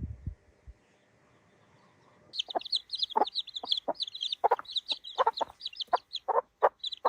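Chickens clucking in short, irregular calls, with a fast run of high chirps over them. The clucking starts about two seconds in, after a near-quiet start.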